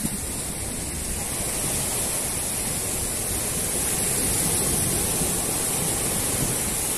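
Steady rushing noise of small waves breaking and washing up a sandy shore.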